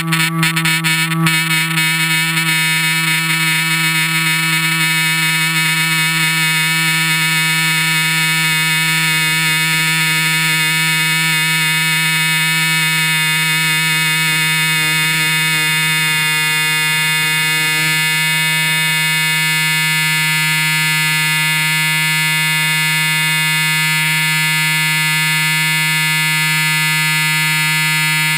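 Loud, steady buzz with many overtones from a GoPro camera resonating against the airframe of a Hype Cessna 182 radio-controlled model plane in flight, set going by the motor's vibration. A few crackles come through in the first couple of seconds.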